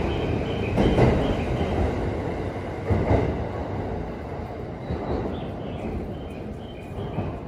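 Yamanote Line E235-series commuter train pulling out of the platform, rumbling past and fading as it draws away.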